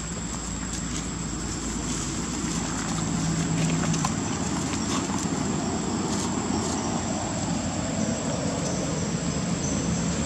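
Steady low engine drone that grows a little louder over the first few seconds, with a thin, steady high whine above it.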